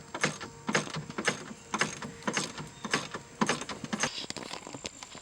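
A run of irregular sharp clicks and knocks, about two a second, from hand work taking apart a car's interior.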